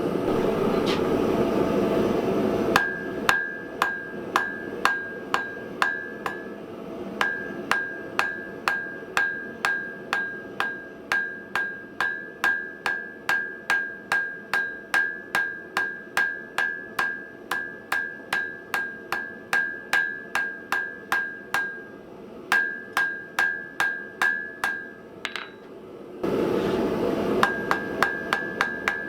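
A hand hammer striking hot steel on an anvil at a steady pace of about two blows a second, each blow ringing with a clear anvil tone. It is drawing out and rounding the tip of a taper. A steady rushing noise comes before the hammering and again briefly near the end.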